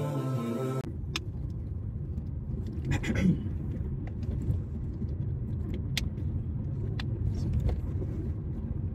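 Road noise inside a moving car's cabin: a steady low rumble, with a few light clicks and a brief rustle about three seconds in. A vocal nasheed cuts off just under a second in.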